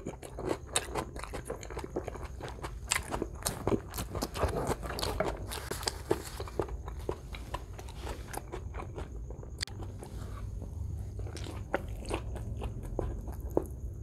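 A man chewing and biting into a flour tortilla soaked in menudo broth, with a dense run of short mouth clicks and smacks, busiest a few seconds in.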